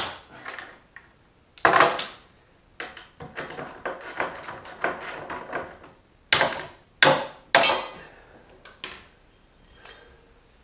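Metal tools and hardware clanking and clinking while a carbide runner is fitted to a snowmobile ski: a few loud clanks around two seconds in and again between about six and nine seconds, with lighter clicks in between.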